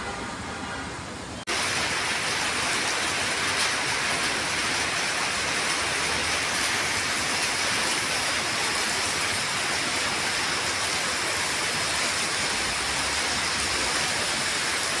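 Steady rain falling, a dense even hiss that cuts in suddenly about a second and a half in, after a quieter opening stretch.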